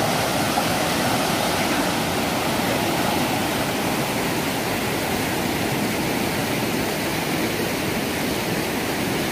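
Rushing water of a small cascade pouring down a granite rock chute into a pool, a steady, even rush.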